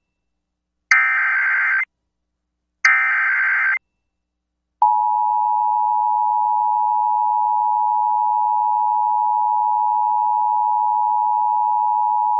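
Emergency Alert System SAME header: two raspy data bursts of about a second each with short silences between, encoding the tornado warning. About five seconds in, the EAS two-tone attention signal starts, a steady dual tone that holds unbroken, announcing the alert that follows.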